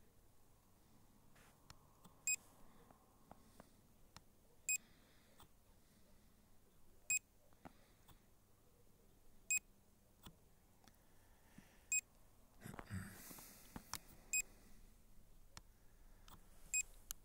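Drone control app's warning beep on the phone, repeating evenly about every two and a half seconds while an alert is up. A brief rustle comes about three-quarters of the way through.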